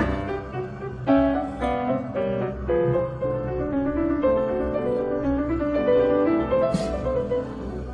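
Background piano music, a continuous run of melodic notes.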